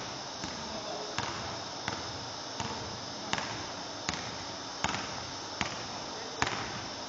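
A basketball dribbled on a hardwood gym floor: a steady run of sharp bounces about every three-quarters of a second, each with a short echo off the gym walls.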